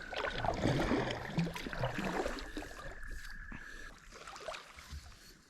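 Kayak paddle strokes: light splashes and water trickling off the paddle blades, fading toward the end. A thin steady high note sounds for about two seconds in the middle.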